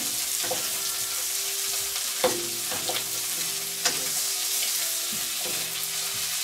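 Diced Bohemian dumplings sizzling as they fry in butter in a wok, stirred with a wooden spatula that scrapes and knocks against the pan. Sharper knocks come about two seconds and about four seconds in.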